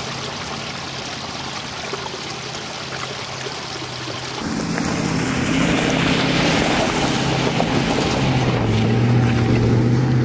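Pickup truck engine running under load as it climbs a gravel driveway, with tyre noise; it grows louder about halfway through as the truck comes close and passes.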